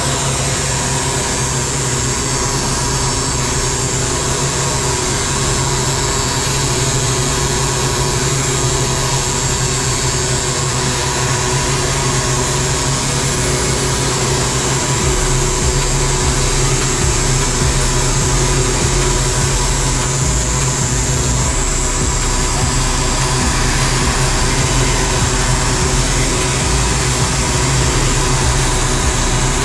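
Heavy engine machinery running steadily: a constant low drone with a hissing, whining top. The deepest rumble grows a little stronger about halfway through.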